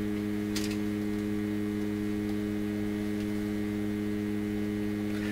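Steady electrical mains hum, several low tones held level, from the powered-up tube radio and its test bench. A brief click or rustle about half a second in.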